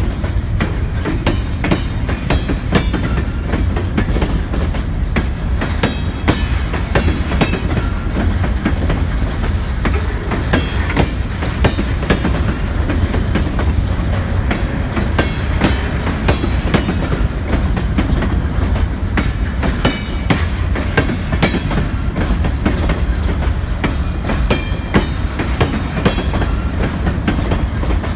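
Freight train of covered hopper cars rolling past close by: a steady low rumble of steel wheels on rail with constant clicking and clacking from the wheels and trucks.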